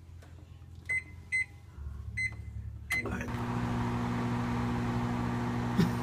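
Microwave oven keypad beeping four times as buttons are pressed, then the oven switches on about three seconds in and runs with a steady hum and fan noise.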